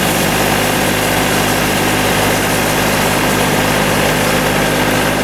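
John Deere compact tractor's diesel engine running steadily, with a continuous rush of snow being thrown.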